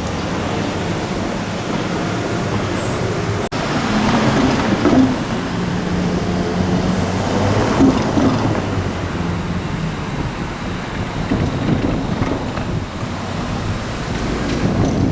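Rumble of a train and road traffic at a level crossing, with a low steady hum that comes in about four seconds in and fades out about ten seconds in. The sound breaks off for an instant about three and a half seconds in.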